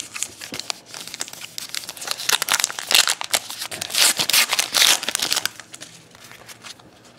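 A trading-card pack wrapper being torn open and crinkled by hand: a dense crackling that is loudest in the middle and dies down about five and a half seconds in.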